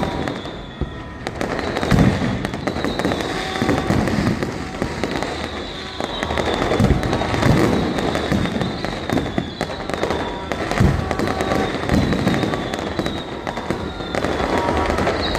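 Fireworks going off: dense crackling with deep booms at irregular intervals of a second or two.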